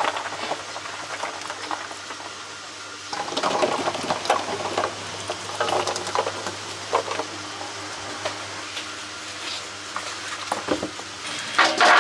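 Pieces of fruit being poured out by the handful, pattering and rattling onto banana leaves and a tray in a few short bursts. Near the end there is a louder clatter as small round fruits drop into a steel bowl. A steady low hum runs underneath.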